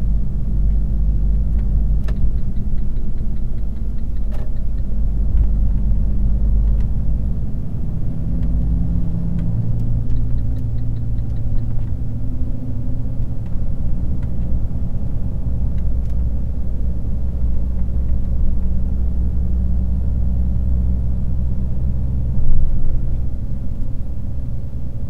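Car engine and road rumble heard inside the cabin while driving in slow motorway traffic, the engine note shifting a few times as speed changes, with a brief louder bump near the end.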